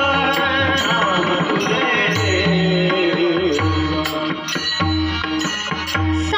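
Music from a Marathi abhang: a bending melodic line over a steady, regular hand-drum beat.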